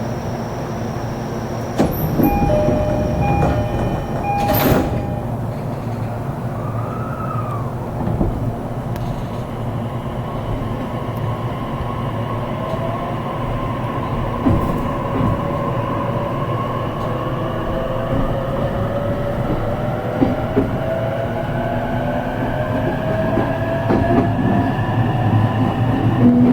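E233-series electric commuter train pulling away, heard from inside the car: a short electronic beeping and a sharp knock in the first few seconds, then the traction motors' whine rising steadily in pitch as the train accelerates, over the rumble of the wheels on the rails.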